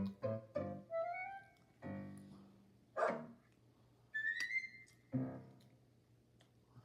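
Light children's cartoon music: short piano-like notes and a couple of rising sliding tones, with a sharp loud hit about three seconds in.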